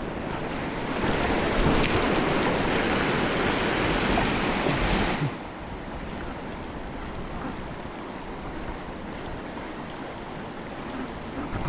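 Fast-flowing river water rushing: a steady rush that drops noticeably in level about five seconds in.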